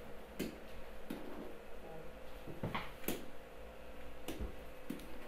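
Scattered light clicks and taps, about six in five seconds, from writing on a computer whiteboard, over a faint steady hum.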